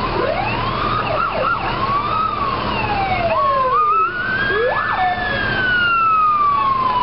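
Fire truck electronic sirens sounding over the rumble of truck engines, several tones overlapping: quick rising and falling yelps near the start and the end, and slower wails that climb and then fall away in the middle.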